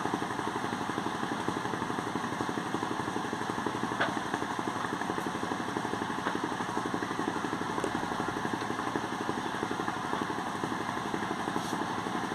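A boat engine running steadily with an even, rapid pulse.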